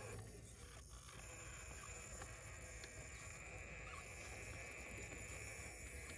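Radio-controlled scale pickup truck crawling slowly uphill over dirt: a faint, steady high whine from its electric motor and Savox steering servo, briefly dropping away about a second in.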